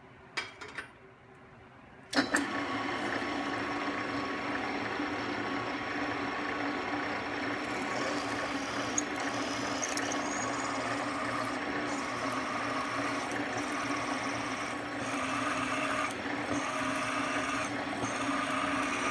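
A few light knocks, then a drill press motor switches on about two seconds in and runs steadily while a twist bit drills a tap hole through an aluminum lid into an aluminum block. Higher whining from the bit cutting the metal comes and goes from about eight seconds in.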